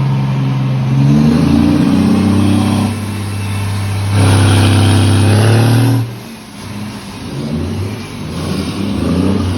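Scania truck's diesel engine revved through its exhaust, a deep rumble. The pitch climbs about a second in and eases off near three seconds. A louder rev is held from about four to six seconds, then drops away sharply, and the revs swell again briefly near the end.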